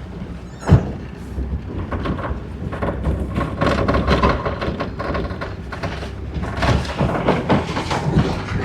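Land Rover Defender 90 driving slowly on a test run, its engine rumbling steadily under a clatter of knocks and rattles, with one sharp knock near the start. It is the run-up-and-down-the-yard check of a newly fitted Ashcroft ATB rear differential, which the driver finds better, with no clunk on taking up drive.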